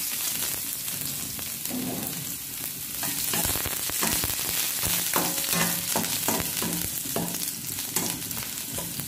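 Chopped garlic sizzling in hot sesame oil in a stainless steel frying pan, with a plastic slotted spatula scraping and stirring it across the pan from about three seconds in.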